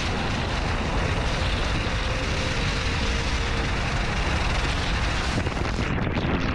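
Steady rush of wind on the microphone and tyre noise from an SUV driving along a wet gravel road, its front tyre hissing through the wet surface and throwing up spray.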